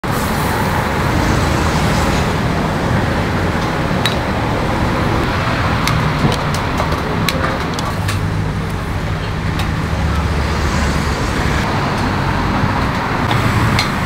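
Steady road traffic rumble, with a few short, light clicks and clinks scattered through it.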